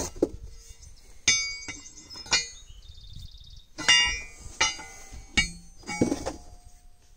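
Steel rotary cutter blades and bolts clinking against each other in their cardboard boxes as they are handled: a series of separate metallic knocks, each ringing briefly.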